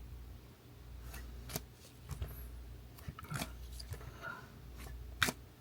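Trading cards being handled and flipped through in a box: soft rubbing with three sharp clicks, the loudest near the end.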